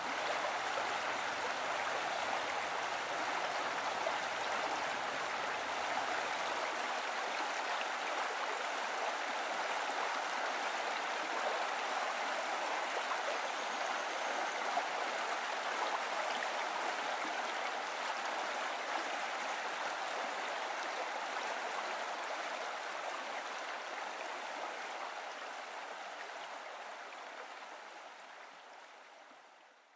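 Small stream tumbling over rocks: a steady rush of running water that slowly fades out over the last several seconds.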